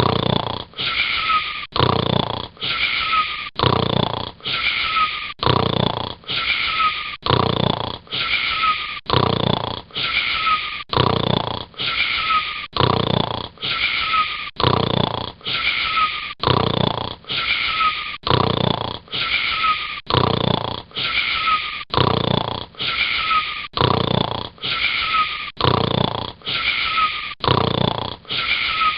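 Snoring, fast and very regular at about one breath a second, each breath carrying a short, slightly falling wheezy whistle.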